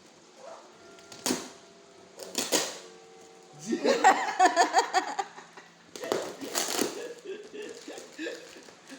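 Parcel packaging being handled and torn open: short crinkling, tearing bursts about a second in, at two and a half seconds and again around six to seven seconds, with a voice or laughter in between.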